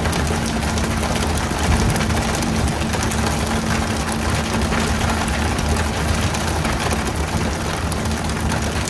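Boat engine running steadily as a low hum, under a loud, constant hiss.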